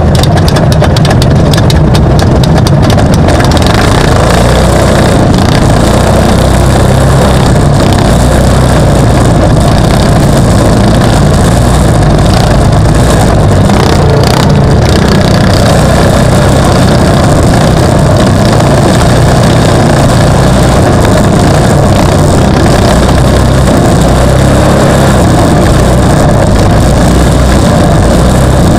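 Off-road race vehicle engines running at speed on a dirt track, loud and overloaded, with a few sharp clicks in the first three seconds.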